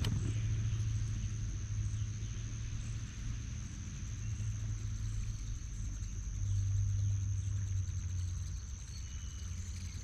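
Bow-mounted electric trolling motor humming steadily, swelling a little about six seconds in. A faint, steady high whine sits over it.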